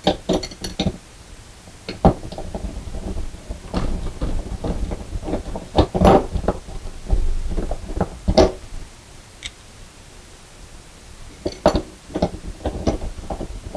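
Irregular light clicks and taps of screws, a screwdriver and a metal closet-rod bracket being handled against a wall as the bracket's screws are started loosely by hand.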